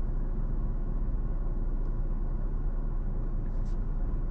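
Steady low rumble inside a parked car's cabin, typical of the car idling.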